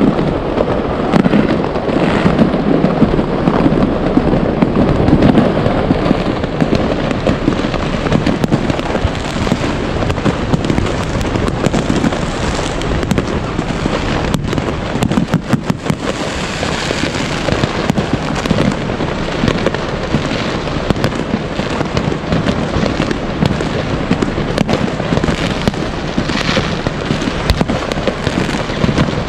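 Many fireworks going off at once: a dense, continuous barrage of bangs and crackling, with a quick run of sharp cracks about halfway through.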